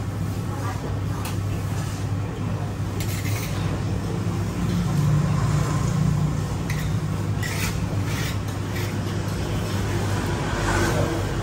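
A steady low mechanical drone, like traffic or a running motor, with a few light clicks of a metal spoon against a plate.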